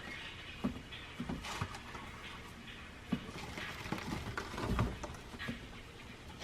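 Scattered light knocks and clicks of things being handled, about a dozen spread through a few seconds, irregular and fairly quiet.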